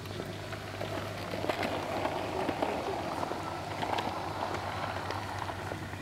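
Sea waves washing onto the shore: a rush of noise that swells about a second in and eases off near the end, with light scattered clicks.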